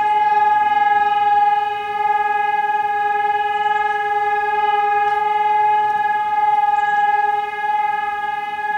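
Civil-defence warning siren sounding one long steady tone, swelling a little in loudness without changing pitch. A steady tone is the German all-clear signal (Entwarnung).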